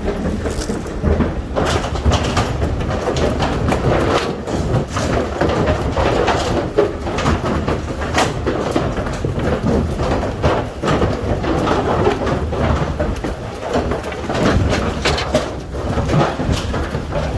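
Cattle hooves clattering and knocking on the metal floor and decks of a cattle trailer as feeder heifers run off it, a dense irregular clatter with a low rumble.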